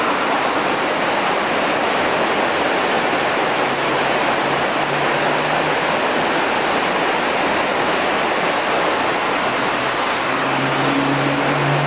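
Steady rushing of the Arize river flowing through the cave. A low engine hum from vehicles on the road through the cave joins it about four seconds in and again near the end.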